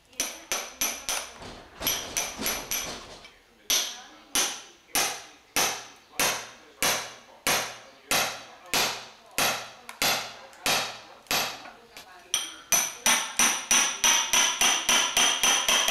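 Hammer striking a steel chisel into a dried plaster shell, sharp blows with a metallic ring, about one every half second in the middle and quickening to about four a second near the end: the plaster shell being chipped free of its clay original.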